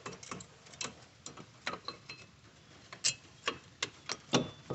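Irregular metallic clicks and clinks, some with a brief ring, as brake pads and caliper hardware are handled and fitted back onto the car's front brake.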